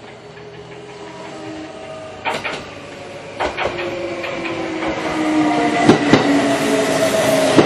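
Kintetsu Ikoma Line electric commuter train pulling into the station and slowing, getting louder as it comes in. The motor whine falls in pitch, and the wheels clack over rail joints several times, loudest near the end.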